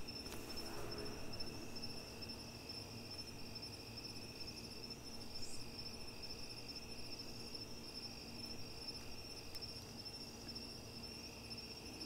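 Night-time chorus of crickets and other insects: a steady, high-pitched, rapidly pulsing trill, with a fainter, lower trill under it and a faint low hum.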